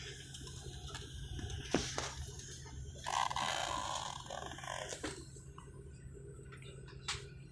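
Steady low drone of an airliner cabin in flight, with a few sharp clicks and a brief rustling burst about three seconds in.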